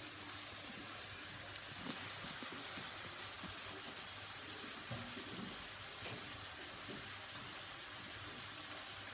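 Swordfish steaks frying in olive oil in a pan: a steady sizzle with a few small pops and spits.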